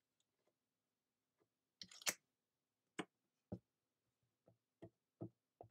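Light clicks and knocks of a paper card and a small magnet being set down and shifted on a plastic stamp platform, about eight short taps after a quiet first couple of seconds.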